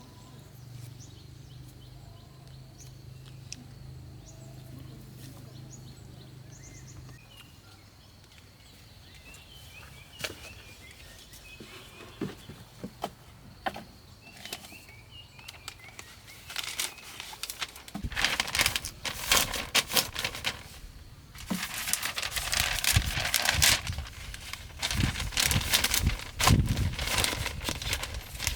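Close rustling and crinkling of something being handled, scattered at first and turning into a dense, continuous run over the last dozen seconds. A low steady hum and a few faint bird chirps are heard in the first several seconds.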